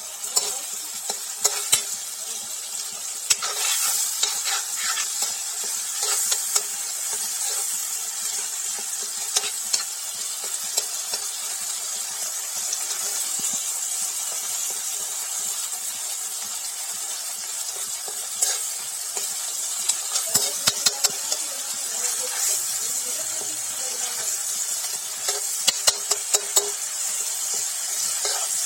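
Food sizzling in hot oil in a pan with a steady hiss, while a spoon stirs and scrapes it, knocking against the pan in clusters of sharp clicks.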